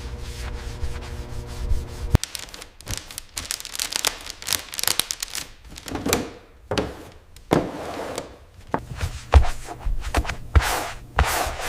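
A steady mechanical hum that stops about two seconds in, then irregular rubbing and scraping strokes with occasional knocks.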